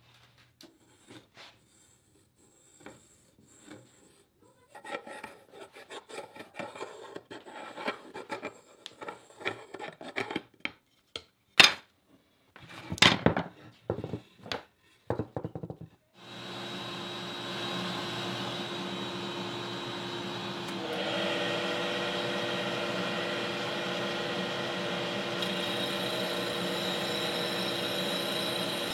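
Wooden pieces handled, rubbed and knocked on a workbench, then about halfway through a power tool starts and runs steadily, its pitch dipping briefly and getting a little louder a few seconds later as it takes up work.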